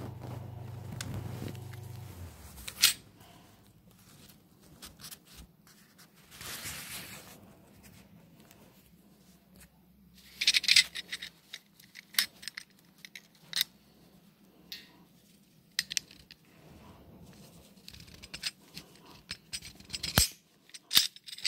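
Fabric being handled and rustled, with scattered sharp clicks and taps as clear plastic clips are pressed onto its edges to hold two pieces together. A low hum stops about two seconds in.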